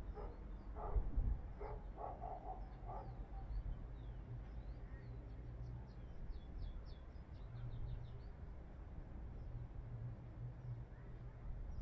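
Small birds chirping in quick high notes and short trills, with a few lower calls in the first few seconds, over a steady low rumble.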